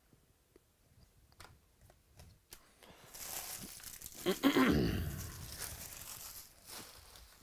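A trading-card pack wrapper being torn open and crinkled for about four seconds, after a few faint ticks, with a low thud at its loudest point.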